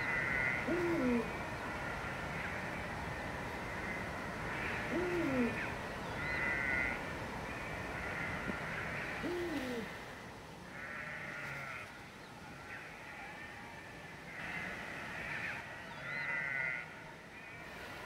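Eurasian eagle-owl hooting: three deep hoots that drop in pitch, about four seconds apart, in the first half. A higher, quavering call recurs every second or two throughout.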